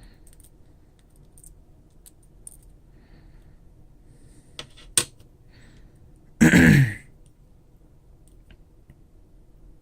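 Light clicks and taps of small parts being handled, two of them sharper about five seconds in, then a person loudly clears their throat once, falling in pitch, about six and a half seconds in.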